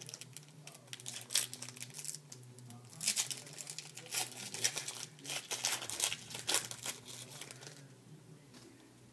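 Foil wrapper of a trading-card pack crinkling and tearing as it is handled and opened, in a dense run of crackles that dies away about eight seconds in.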